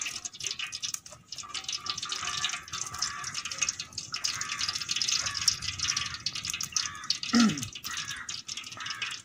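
Cooking oil poured from a plastic pouch into an aluminium pot, a steady trickling and splashing stream. A brief falling tone sounds about seven seconds in.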